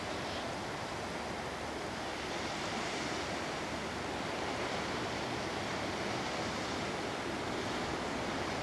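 Sea surf washing steadily on the shore, a continuous rush of noise, with a light breeze.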